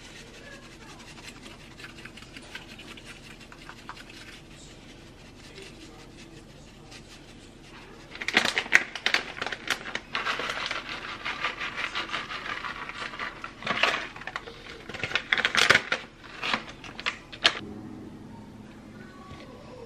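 A plastic bag of bacon bits crinkling and rustling as it is shaken out over shredded cheese in a slow cooker, with many sharp clicks, for about nine seconds starting some eight seconds in. Before that, only faint sounds as ranch seasoning is shaken from a plastic shaker. A couple of knocks come near the end as the glass lid is set on the pot.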